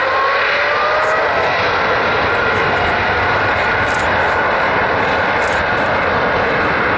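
Boeing 777 freighter's twin GE90 turbofan engines at takeoff thrust during the takeoff roll: a loud, steady roar with a whine that rises in pitch over the first second or so and then holds level.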